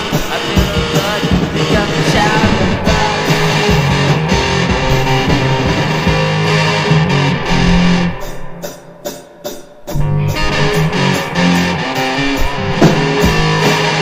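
Rock music with guitar and drums, thinning out to a quieter break for about two seconds around the middle before the full band comes back in.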